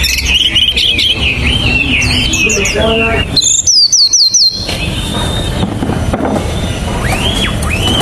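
Caged Hainan blue flycatcher singing: varied whistled phrases, then a loud run of about five quick, high, looping notes a little over three seconds in, and quieter notes near the end.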